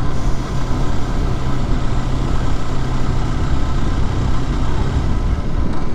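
Mondial SMX 125i supermoto's single-cylinder 125 cc four-stroke engine running at a steady, even pitch under a dense low rumble.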